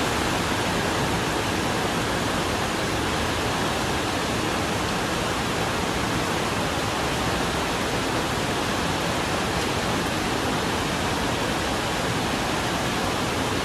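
Steady rain falling on a corrugated iron porch roof and around it: a dense, even hiss in which no single drops or knocks stand out.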